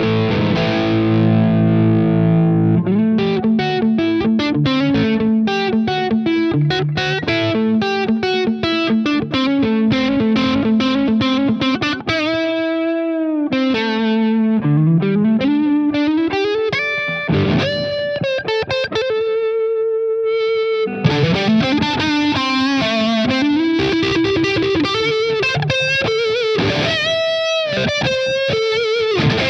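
Background music: an electric guitar played through distortion and effects, picking fast runs with notes that bend and slide up and down in pitch.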